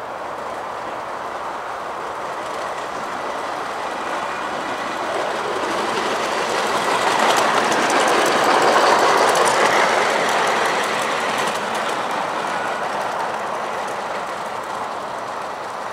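A 7¼-inch gauge miniature model diesel shunter with a riding truck runs past on the track, its wheels rumbling and clicking over the rails. It grows louder to a peak about eight to ten seconds in as it goes by, then fades away.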